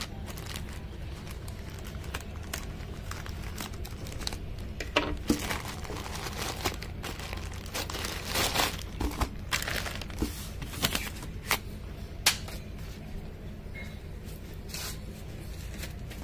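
Plastic courier mailer bag crinkling and tearing as it is opened and the package inside is pulled out. Irregular sharp crackles, busiest and loudest in the middle.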